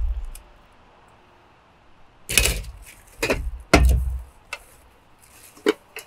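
Camping cookware and packaging being handled: three dull knocks with rustling about two to four seconds in, then a few lighter taps near the end.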